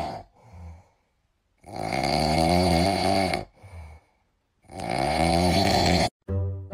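French bulldog snoring loudly in its sleep: two long, rasping snores about three seconds apart, with softer breaths between.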